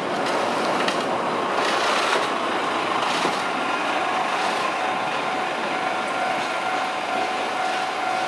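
Rail work vehicle running on the track at a level crossing: a steady rail rumble with scattered clicks.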